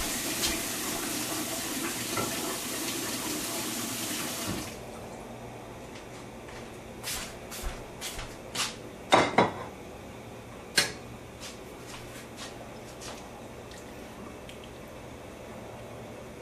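Water running from a tap, filling a bowl, cut off abruptly about four and a half seconds in; then a scatter of sharp clicks and knocks, the loudest two near the middle.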